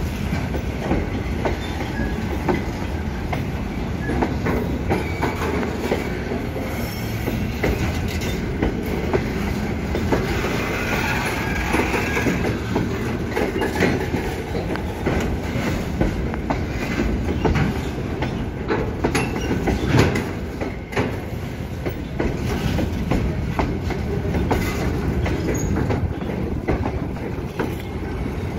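Freight train wagons loaded with shipping containers rolling past close by: a steady rumble of steel wheels on rail, broken by many short clacks as the wheels cross rail joints. A faint wheel squeal rises about ten seconds in.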